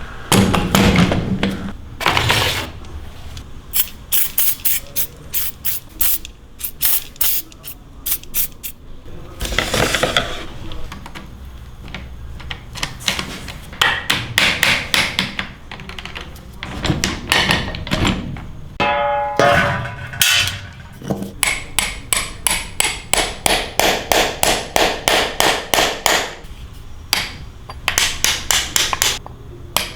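Hand-tool work on a rusty scooter's metal parts, mostly hammer blows: irregular knocks at first, then steady runs of strikes at about three a second in the second half, with a short metallic ring partway through.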